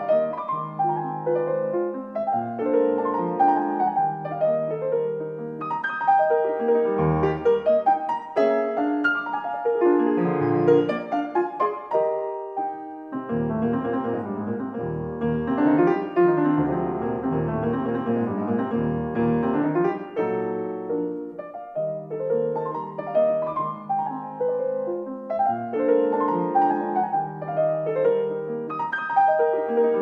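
Background piano music: notes played in quick succession over low bass notes, growing fuller and denser in the middle.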